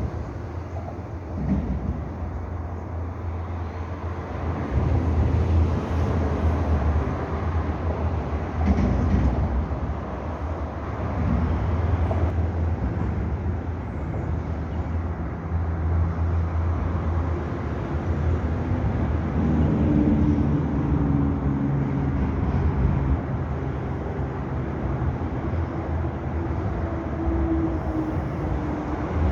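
Steady low rumble of a moving vehicle, with a faint hum joining in about two-thirds of the way through.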